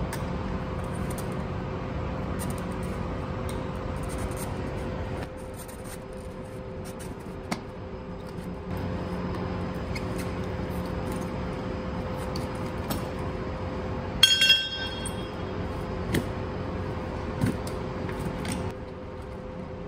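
Screwdriver scraping and clinking against a power-wheelchair wheel's metal rim as the tyre is prised over it, with a few sharp taps and one ringing metallic clatter about fourteen seconds in. A steady hum runs underneath.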